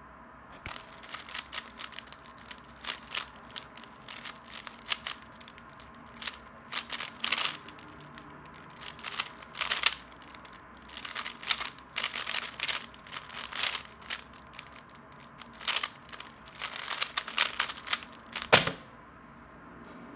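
3x3 speed cube being turned rapidly in bursts, its plastic layers clicking and clacking, with short pauses between runs of turns. A single sharp knock near the end is the loudest sound.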